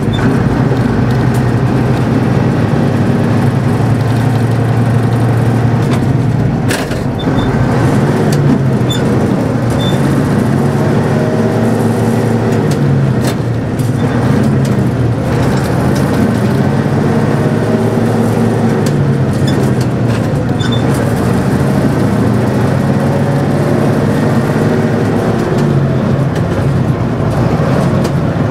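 Vintage Fiat truck diesel engine running, heard in the cab, its pitch rising and falling as the driver double-clutches through the gears and the range reducer. A few sharp clunks stand out.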